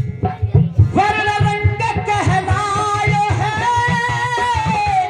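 Devotional kirtan music: a steady drum beat, then about a second in a long held melody with wavering pitch over it.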